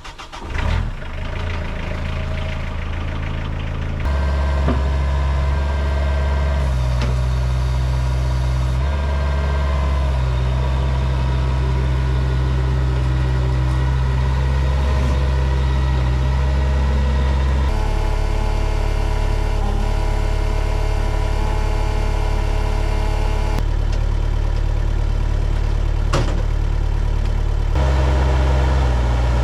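Skid steer engine catching at the start, then running steadily. The throttle is raised about four seconds in, and the engine speed shifts several more times as the machine works.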